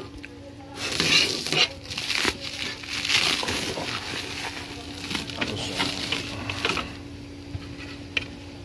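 Clear plastic stretch wrap crinkling and crackling in irregular bursts as it is cut and pulled off a new inverter's casing. It is busiest from about a second in and dies down near the end.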